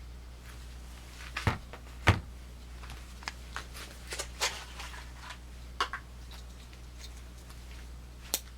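Handling noise from Swiss Army knives: a scatter of light clicks and knocks, the loudest two a little over a second and about two seconds in, with smaller ticks through the middle and one more near the end, over a low steady hum.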